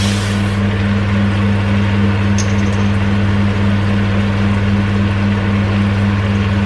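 Steady electric hum and rushing air of a kitchen range-hood fan running over a simmering pan. A short fizzing hiss at the start comes as a plastic bottle of Coca-Cola is opened, and the cola is then poured into a measuring cup.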